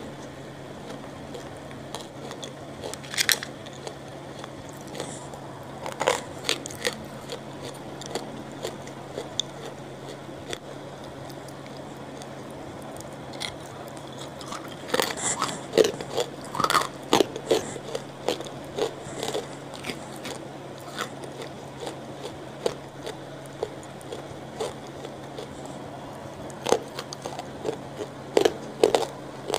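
Close-miked eating: crunchy bites into hard grey lumps and chewing. The crunches are scattered at first, come thick and fast through the middle, and pick up again near the end.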